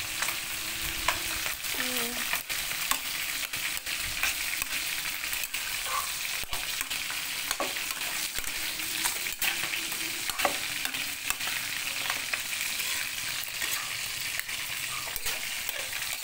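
Diced mushrooms, potatoes, carrots and eggplant sizzling in a wok, with a steady hiss and frequent sharp scrapes and taps as a spatula stirs them against the pan.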